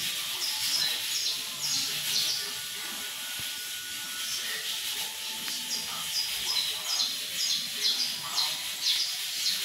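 A caged male canário, a small yellow finch, singing quick phrases of high chirped notes, some stepping down in pitch. The song comes in two bouts with a pause of about three seconds between them, over a steady background hiss.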